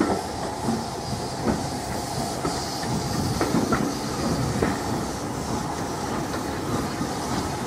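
Passenger coaches of a steam-hauled train rolling past at close range, their wheels knocking irregularly over rail joints, with steam hissing from beneath the coaches.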